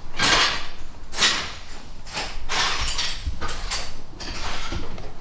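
Footsteps scuffing on a gritty floor, about one a second, each a short scrape with a dull thud under it.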